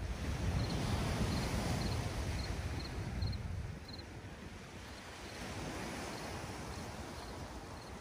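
Wind rumbling on the microphone over the steady wash of small waves on the shore, the wind easing about four seconds in. Faint high chirps repeat about twice a second through the first half.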